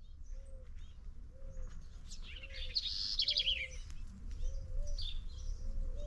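A dove cooing in a steady series of short, low, rounded notes, with a songbird's fast, high, falling trill about two seconds in and a few other high chirps later.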